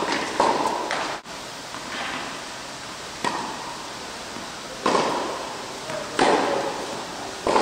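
Tennis ball being struck by rackets and bouncing on an indoor court, a sharp pop every second or two. Each one rings on briefly in the big hall.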